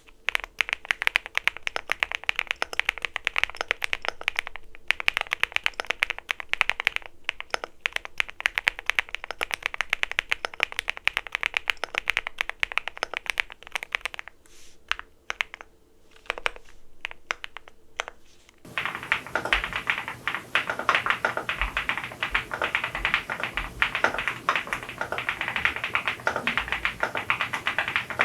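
EPOMAKER x Feker Galaxy80 tenkeyless mechanical keyboard being typed on quickly and continuously in a typing sound test, a dense run of key clacks with a few short pauses around the middle. About two-thirds of the way through, the sound becomes louder and fuller.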